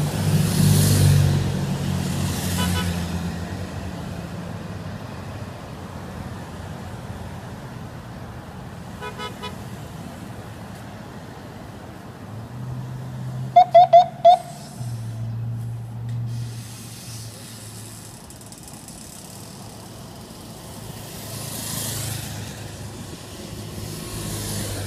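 Cars of a bicycle race convoy and a motorcycle escort drive past one after another, their engines rising and fading as each passes. About halfway through, a car horn gives four quick toots.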